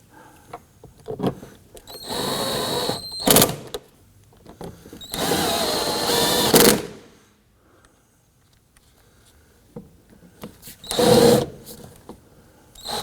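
Power drill driving in the door panel's three bolts, running in three short spurts with a steady whine, each lasting about a second or so.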